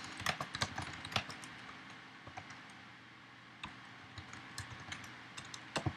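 Faint typing on a computer keyboard: irregular key clicks, a short lull a little before halfway, then more keystrokes.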